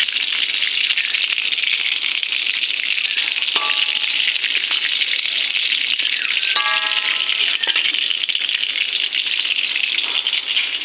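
Fish frying in hot oil in a steel wok, a loud steady sizzle. A metal spatula clinks against the wok twice, a few seconds apart.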